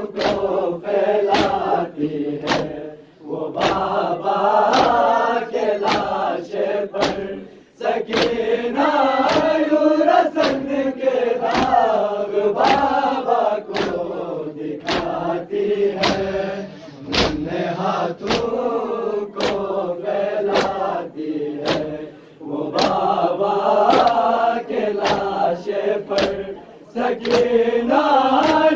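Men's voices chanting a Shia noha together, with a steady beat of sharp hand slaps from chest-beating (matam) keeping time with the chant.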